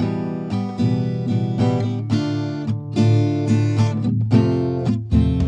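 Background music of plucked string notes, played at a lively pace.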